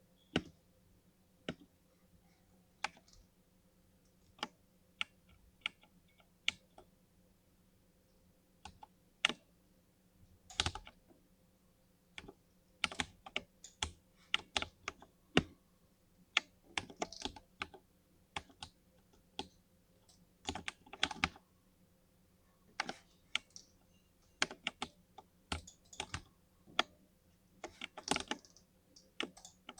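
Computer keyboard keys clicking: single keystrokes spaced a second or more apart at first, then quicker, irregular typing from about twelve seconds in.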